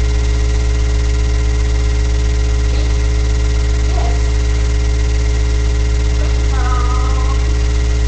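Loud, steady electrical mains hum picked up by the webcam's microphone, holding one pitch with its overtones throughout. Faint brief voice sounds come through about four seconds in and again near seven seconds.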